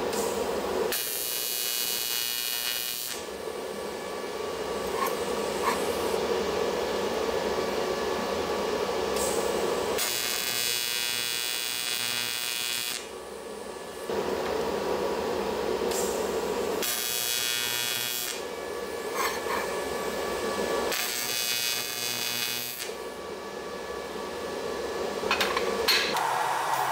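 AC TIG welding arc on an aluminum intercooler core, buzzing in short bursts of one to three seconds, about five times, with a steady hum between the bursts.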